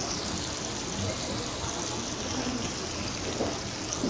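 Slices of frozen pork belly sizzling steadily on a hot tabletop griddle, a constant frying hiss, with a couple of faint small clicks near the end.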